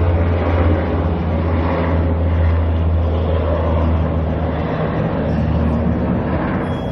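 A UH-60 Black Hawk military helicopter flying overhead: steady, loud rotor and turbine noise with a strong deep hum underneath.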